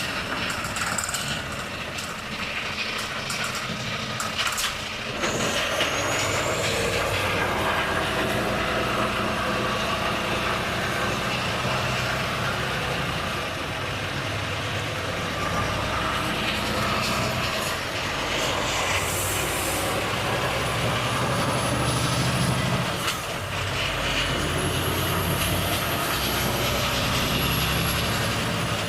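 Volvo FH truck's diesel engine, heard from the cab: quieter with scattered clicks at first, then about five seconds in the engine pulls hard and runs on at a steady, loud note, dipping briefly a few times as the gears change. A high thin whistle rises over it near the end.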